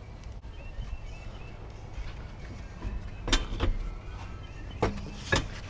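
A few sharp metallic knocks, two near the middle and two near the end, from hand-tool work on a car wheel, loosening a lug nut with a breaker bar, over a low steady hum.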